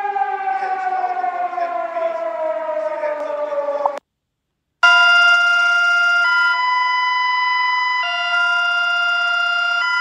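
A siren tone sliding slowly down in pitch, cut off sharply about four seconds in. After a short silence, an electronic alarm sounds: several steady tones together that jump to new pitches every second or two.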